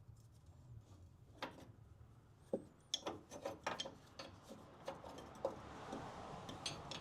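Faint scattered clicks, light knocks and scraping of tools and metal parts being handled, as the torsion bar cover stuck on its rubber bushing is worked loose; the scraping and rubbing grows steadier about five seconds in.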